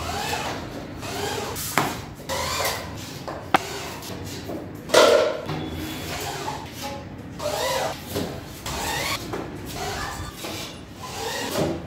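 Corded power drill driving screws into metal drywall studs and tracks in short runs, with sharp metal clicks and a louder burst about halfway through.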